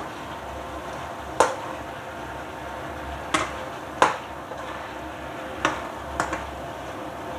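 Metal spatula knocking against a wok five times while stirring simmering pork adobo, over a steady sizzling hiss and the hum of an induction cooktop.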